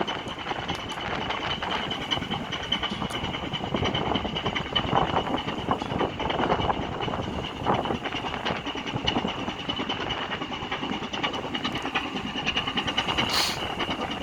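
Diesel engine of a 498-ton gut ship running under way, a dense rapid knocking with a steady high whine over it, heard through strong wind. A brief high hiss comes near the end.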